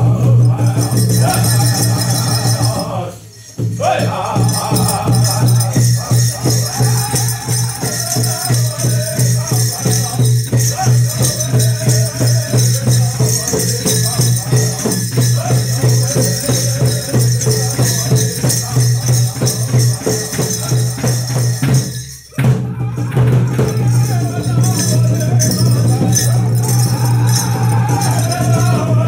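Powwow drum and singers: a big drum beaten in a steady, even pulse under a group of voices singing a powwow song, with two short breaks in the sound about three and twenty-two seconds in.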